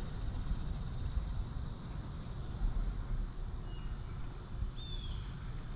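Steady outdoor river ambience: a low rumble and hiss with a faint insect drone. Two short high chirps come in the second half.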